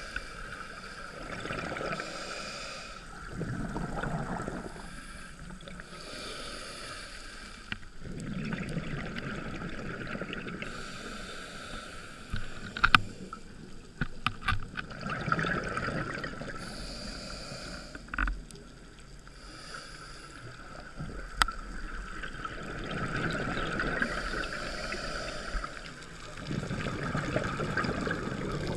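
Underwater audio on a scuba dive: a diver's exhaled regulator bubbles rush up in swells every few seconds over a steady hum. A few sharp clicks come around the middle, the loudest about halfway through.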